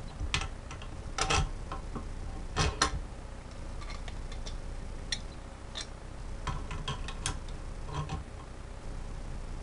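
A wrench clicking and clinking against brass air-line fittings on a small air tank as they are snugged tight. The metallic ticks come at irregular intervals, with a couple of louder knocks in the first three seconds.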